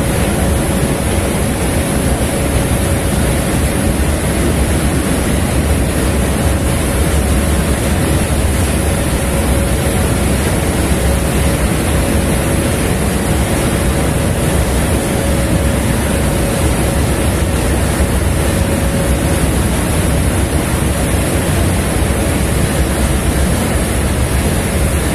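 Steady low rumble of a ship underway, with wind buffeting the microphone and water wash, and a faint steady hum over it.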